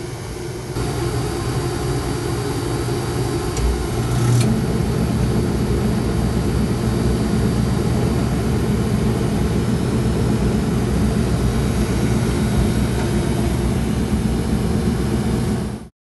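Belt-driven squirrel-cage blower motor of an oil-fired hot-air furnace running with a chattering noise, which the owner suspects comes from the motor's centrifugal switch. The oil burner runs alongside.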